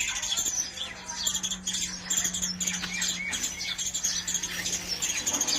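Birds chirping and twittering continuously, many short quick calls overlapping, over a faint steady low hum.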